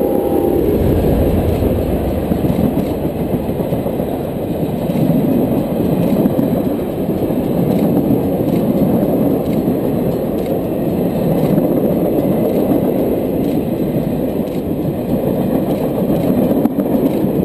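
Passenger train rolling past, a trailing diesel unit and a string of passenger cars: steady rumble and rattle of steel wheels on the rails, with faint clicks here and there. The tail of a steam whistle note dies away in the first half second.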